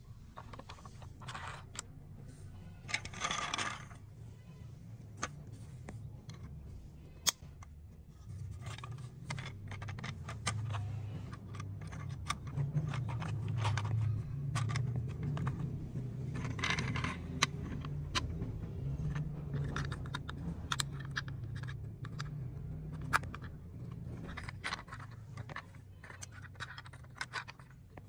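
Hard plastic clicks, rattles and scrapes of a toy train's locomotive, passenger car and coal tender being set onto plastic track and coupled by hand, over a low steady rumble.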